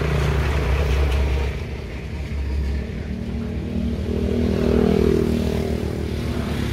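A motor vehicle's engine running and passing by, loudest about five seconds in, over a steady low rumble.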